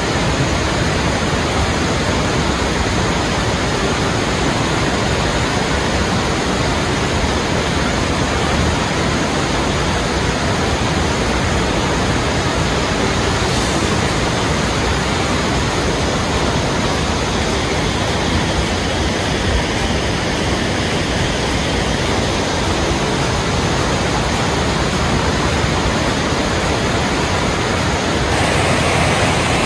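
Large multi-tiered waterfall: a steady, loud rush of water falling over stepped rock ledges.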